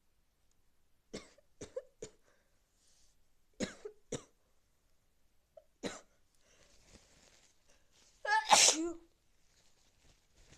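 A person with a cold sneezing: several short, sharp sounds over the first six seconds, then one loud, voiced sneeze about eight seconds in.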